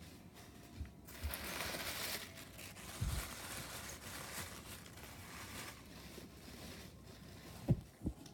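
Plastic packaging rustling and crinkling as it is handled and opened, with a low thump partway through and two short knocks near the end.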